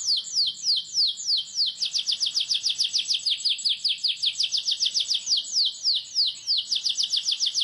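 Domestic canary singing a tight roll: a long, unbroken run of rapid repeated chirps, each sweeping down in pitch. The pace changes, slower about a second in and again past the midpoint, faster in between.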